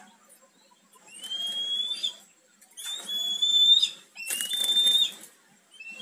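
Three clear, high whistles, each about a second long: the first rises, the other two hold a steady pitch.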